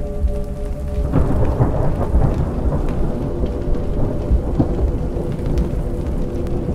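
Thunder rumbling over steady rain, swelling louder about a second in and then rolling on.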